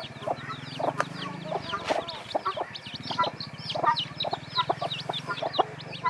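Leghorn hen and her chicks calling: the chicks peep rapidly in short, high, falling chirps, several a second, over the hen's lower clucks and a steady low drone.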